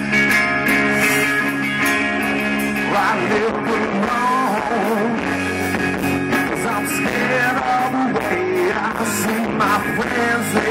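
Live rock band playing electric guitars, bass and drums over sustained chords. About three seconds in, a lead line that bends up and down in pitch comes in over the band.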